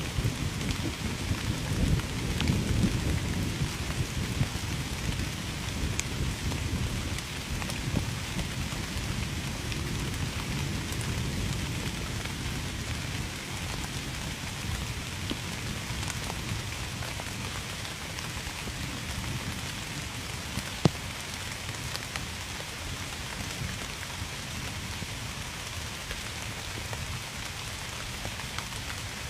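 Steady rain falling, with individual raindrops ticking sharply on a surface. A low rumble under the rain is strongest in the first several seconds and then fades, and one louder drop lands about two-thirds of the way through.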